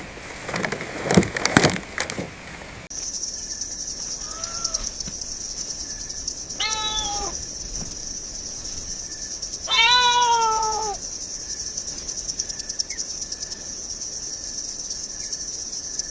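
Cat meowing three times: a faint short meow, then a clearer one, then a longer, louder one about ten seconds in, over a steady high-pitched hiss that begins about three seconds in. A few sharp knocks come in the first seconds.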